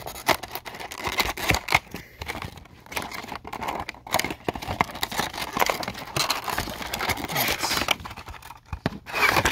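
Toy packaging being handled and opened: crinkling and rustling with many small irregular clicks and knocks.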